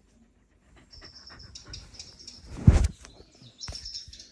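Recorded birdsong played through a Yandex Alice smart speaker: rapid, high chirping trills that start about a second in and return near the end. A brief, loud, low thump comes about two and a half seconds in.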